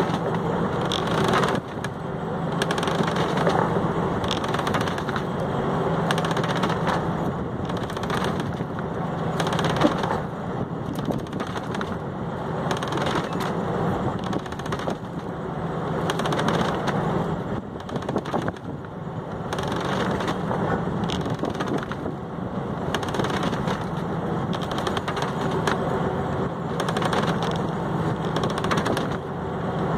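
A fishing boat's engine running steadily with a rapid pulsing beat.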